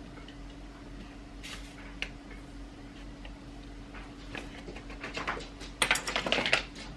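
Granulated sugar being spooned and scraped while it is weighed out, a quick run of rustling, scraping strokes near the end, over a faint steady hum.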